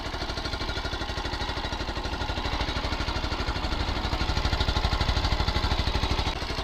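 Single-cylinder motorcycle engine idling with a steady, even pulse, a little louder past the middle. The riders are chasing an odd noise from it, which they take for a loose exhaust bolt or possibly a valve.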